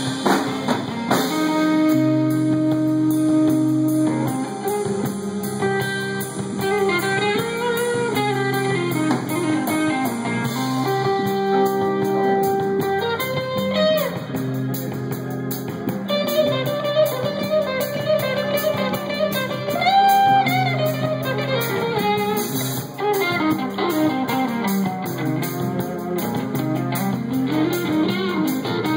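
Live band playing, with an electric guitar lead whose notes bend up and down over a drum kit.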